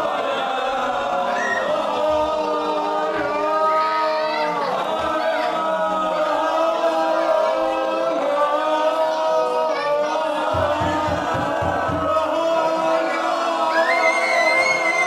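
A group of men and women chanting long vowel tones together as a voice exercise, several voices at different pitches overlapping. A few low thumps come about two-thirds of the way through.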